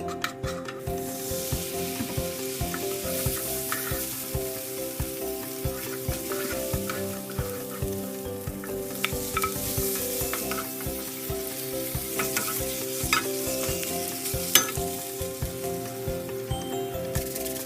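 Green curry sizzling as it fries in hot coconut cream in a pot, stirred with a utensil that scrapes and knocks against the pot. The sizzle starts about a second in and dies away near the end.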